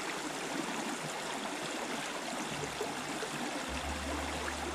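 Flowing river water, a steady rushing and rippling hiss. About three-quarters of the way through, a low steady hum comes in underneath it.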